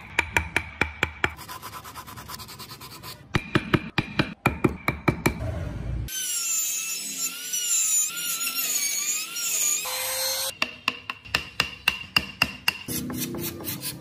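Rapid, evenly spaced taps of a carving chisel on wood. About six seconds in, a handheld trim router cuts into the wood for nearly four seconds, its motor pitch wavering under load; then the taps resume.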